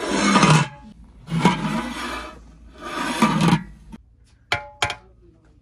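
Metal ladle scraping around inside an aluminium cooking pot in three rough strokes, then two sharp taps on the pot with a brief metallic ring near the end.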